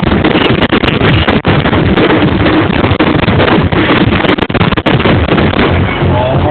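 A fireworks barrage: a loud, dense, continuous rumble and crackle that overloads the recording.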